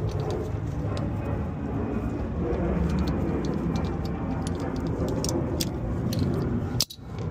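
Steady low rumbling background noise with scattered light clicks, cut off by a brief dropout near the end.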